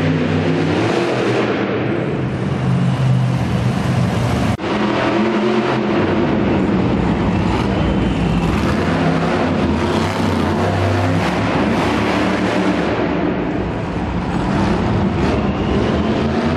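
Monster truck engines running loud and revving, the pitch rising and falling as the trucks drive and jump. The sound drops out for a moment about four and a half seconds in.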